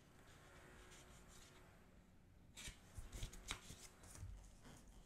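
Faint rustling of paper and card as gloved hands slide a photocard out of a paper sleeve and handle it. A cluster of crisp crackles and taps comes a little past halfway, then a few softer ones.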